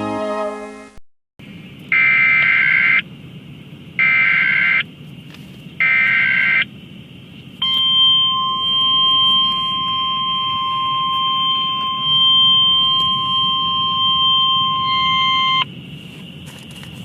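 Emergency Alert System broadcast. Three data bursts about a second long each form the SAME header, then a single steady attention tone sounds for about eight seconds, for a Network Notification Message. Music fades out at the start, and a steady hiss is left after the tone stops.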